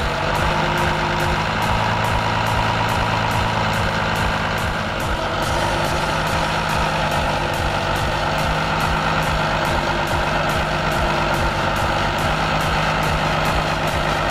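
Farm tractor engine running steadily while the hydraulics fold a wide multi-row corn planter, with a regular ticking about three times a second in the first few seconds.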